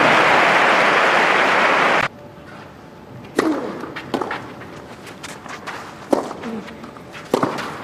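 Crowd applauding, cut off abruptly about two seconds in. Then a tennis rally: sharp racket strikes on the ball, one every second or two.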